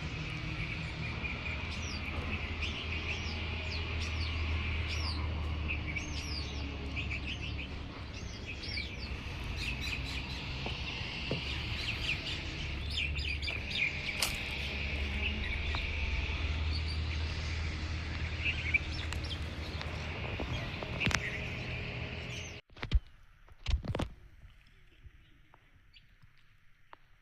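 Many birds chirping and calling in quick short notes over a steady low rumble. About 22 seconds in the sound cuts off suddenly, followed by two sharp clicks and a faint hiss.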